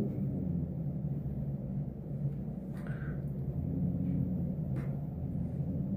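Room tone: a steady low hum, with two faint clicks about three and five seconds in.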